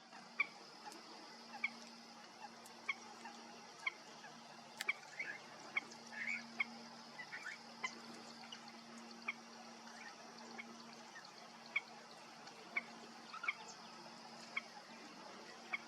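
Grey-headed swamphen giving short, sharp calls roughly once a second, with a quicker run of longer calls in the middle, over a faint steady high hiss.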